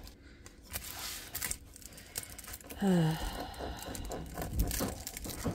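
Plastic sleeve of a rolled diamond-painting canvas crinkling and rustling as it is handled and pressed flat, with scattered small clicks. About three seconds in, a dog gives a short grumbling groan that falls in pitch.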